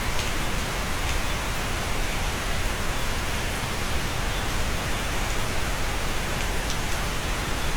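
Steady rain falling, an even hiss with a couple of faint drop ticks.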